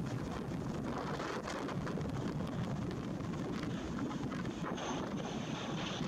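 Gusty wind buffeting the microphone over the steady drone of an ATR 72-600 turboprop on final approach, with a brief high whine near the end as it nears.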